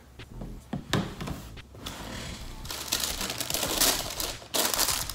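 Paper packaging being handled: a knock of cardboard about a second in, then tissue paper in a shoebox rustling and crinkling, with a second burst near the end.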